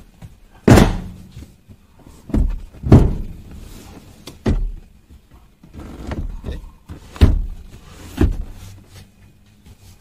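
A Toyota Fortuner's second-row seat being slid and reclined to the end of its travel: a string of about six heavy thuds and clunks from the seat mechanism, a second or two apart, the loudest about a second in.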